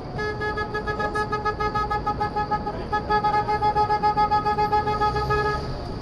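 A single-tone car horn held in one long blast of about five seconds, with a brief break about halfway, over traffic and wind noise.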